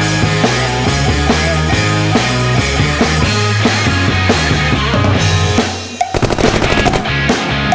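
Rock music with bass and a drum kit keeping a steady beat. About six seconds in the band drops out briefly, a rapid drum roll runs for about a second, and then the music resumes.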